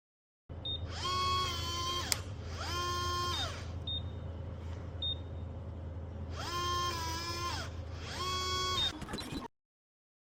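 Small electric motor of a motorized fingerprint deadbolt lock whirring four times, each run about a second long, rising in pitch, holding and winding down as it drives the bolt. Short high beeps from the lock come between the runs.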